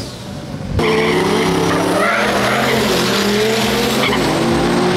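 Engine of the 1000-horsepower Lada Niva drag car running hard with its tyres squealing and spinning. It comes in loud under a second in, and its pitch slowly climbs.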